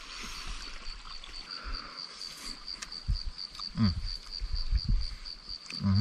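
An insect, cricket-like, calls steadily in a high-pitched pulsing trill of about five pulses a second. A short vocal sound comes about four seconds in, along with a few low thumps.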